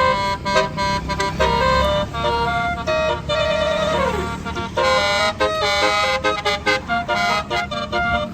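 Tourist bus's basuri telolet horn playing a quick melody of changing multi-note tones, with a falling pitch slide about four seconds in, over a steady low hum.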